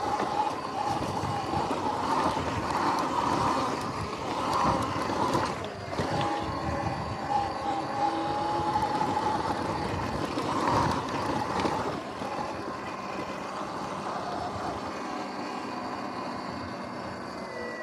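Sur-Ron X electric dirt bike riding off-road: a motor whine that rises and falls with speed, over wind rush and tyre noise, with a few knocks from rough ground. After about twelve seconds it settles into a steadier, slightly quieter run.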